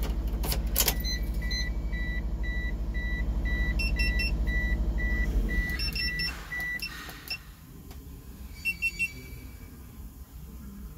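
Race car's electronics beeping after key-on: a steady run of short high beeps, about three a second, for several seconds, with a few higher two-tone chirps later. A couple of sharp clicks come near the start, over a low hum that fades about six seconds in.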